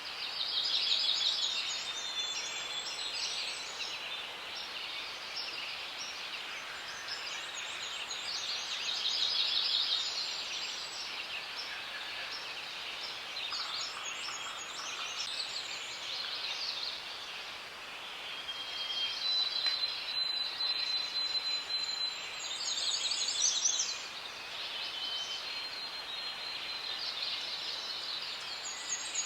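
Forest ambience: birds singing in short, repeated phrases every few seconds over a steady high hiss.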